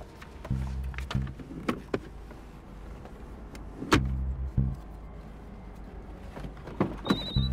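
Small clicks and handling sounds, with three short low pulses about three and a half seconds apart. Near the end a mobile phone starts ringing with a high electronic beep.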